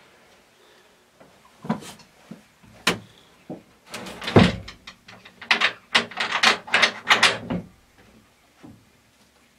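The hinged plywood lid of a homemade gravity chicken feeder closes with a wooden knock. A run of knocks and clatters follows, thickest in the middle few seconds.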